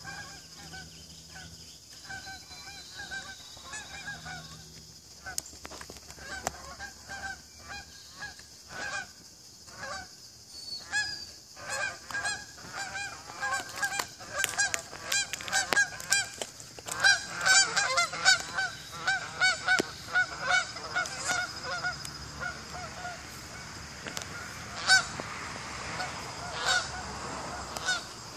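A flock of geese flying overhead, honking over and over; the honks grow denser and louder about halfway through, then thin out and fade near the end.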